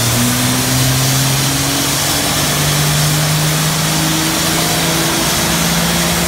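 Loud steady hiss of a CO2 extinguisher blasting into the engine bay of a Dodge Ram's running Cummins diesel, with the engine note climbing slowly in steps as the revs rise.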